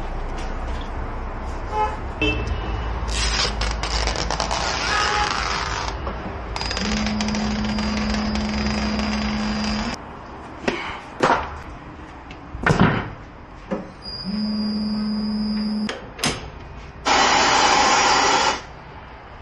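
Tyre changer at work: its turntable motor hums steadily in two runs of a few seconds each, between sharp metal clanks of the mounting tools. A loud rush of noise lasting about two seconds comes near the end.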